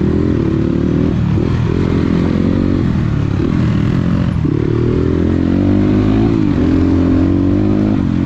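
Dirt bike engine running under way, heard from on the bike, its revs rising and dropping several times as the rider works the throttle and gears.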